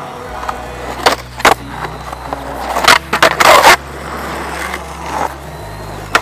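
Skateboard wheels rolling on rough asphalt, with sharp clacks of the board about one and one and a half seconds in. A loud scraping stretch comes around three seconds in. A sharp hit near the end comes as the board meets a wooden bench ledge.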